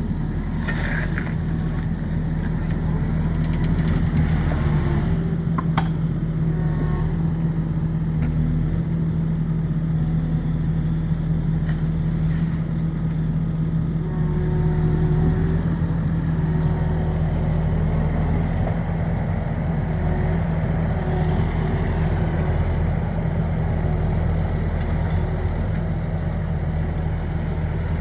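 Skid steer loader's engine running steadily, with a strong low hum and slight rises in level now and then.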